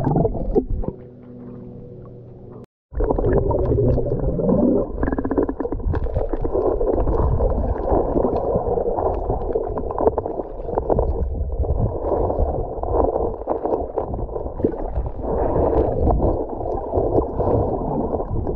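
Muffled underwater sound from a submerged camera: a steady low rumble of moving water with gurgles and small clicks. It cuts out for a moment about three seconds in.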